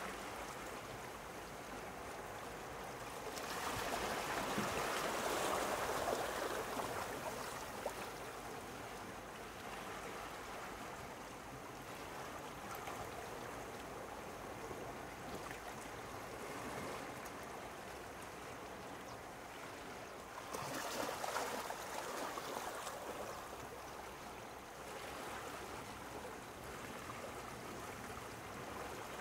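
Sea waves lapping and washing, with two louder surges: one about four seconds in that lasts a few seconds, and another about twenty-one seconds in.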